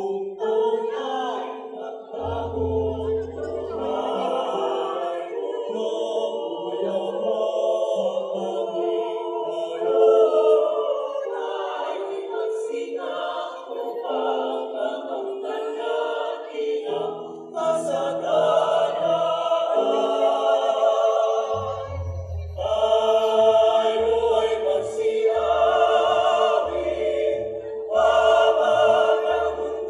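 Mixed choir of men's and women's voices singing in parts, starting right after a short pause. The singing grows fuller and louder, with deep low notes, about two-thirds of the way through.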